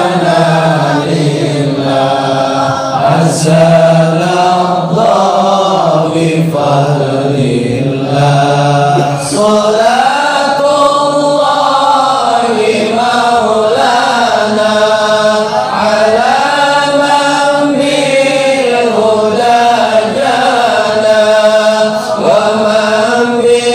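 Men's voices chanting Islamic devotional verses together, a slow melodic chant of long held notes that glide up and down, the melody moving to a higher line about ten seconds in.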